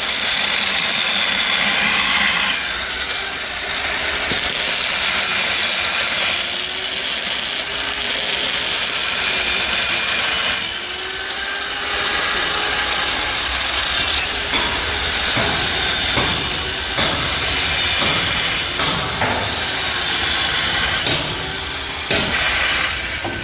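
Harsh, hissing noise of a power tool working on metal, steady for a few seconds at a time and changing in stretches, with a few knocks in the second half.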